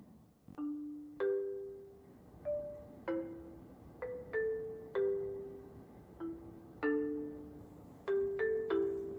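Background music: a slow, gentle melody of struck mallet-percussion notes, single or two at a time, each ringing briefly and fading.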